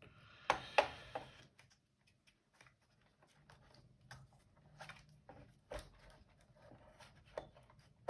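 Scattered light clicks and knocks of a robot vacuum's plastic parts being handled, with a louder clatter of a few knocks about half a second to a second in.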